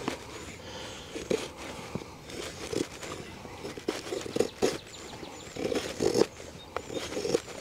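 A D2 steel fixed-blade bushcraft knife shaving curls off a piece of dry seasoned wood: about a dozen short, irregular scraping strokes as the blade bites and slices along the grain.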